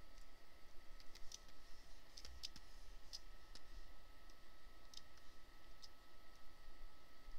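About eight scattered, sharp clicks at uneven intervals from a computer pointing device, as points of a polygonal lasso selection are placed along an outline. Faint steady room tone with a thin electrical whine underneath.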